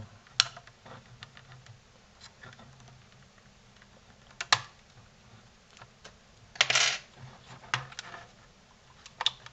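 Sharp clicks and small plastic snaps as a metal prying tool works along the seam of a PS4 power supply's plastic case, popping its clips loose. One longer crackling burst about seven seconds in.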